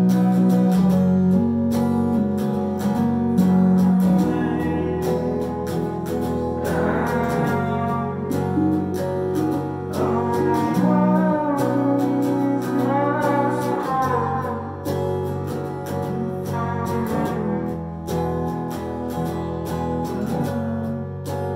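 Band playing a slow, ambient piece: electric guitars through effects over held low notes, with a wavering melody line in the middle stretch.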